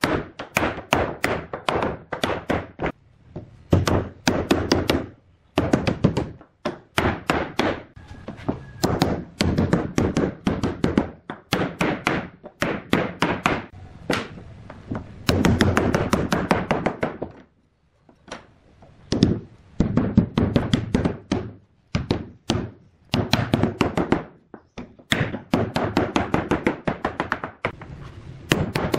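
Hammer tapping wooden inlay pieces down into their recesses in a solid-wood tabletop: rapid bursts of sharp knocks with short pauses between them.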